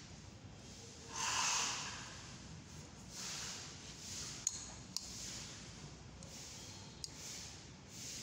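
A person's breath near the microphone: a loud snort-like exhale about a second in, then softer breaths, with a few small sharp clicks from handling the plastic oil filter cap.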